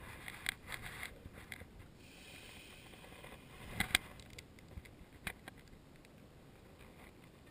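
Faint clicks, scrapes and light knocks of gear being handled aboard a plastic fishing kayak, with a sharp double knock about four seconds in and another just past five seconds.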